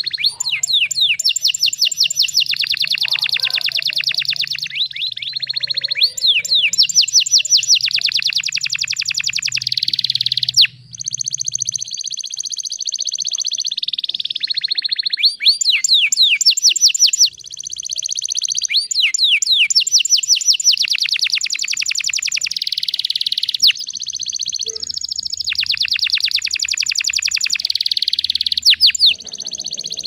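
Domestic canary singing a loud, near-continuous song of very fast trills and rolls, broken by short pauses about ten and seventeen seconds in.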